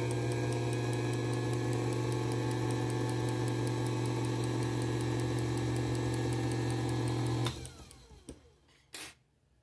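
Watchmaker's lathe motor running steadily with a fast, light regular ticking, switched off about three-quarters of the way through and winding down. A short sharp knock follows near the end.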